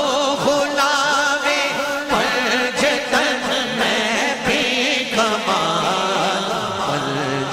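Male voice singing a naat in long, wavering held notes, with a steady held tone underneath.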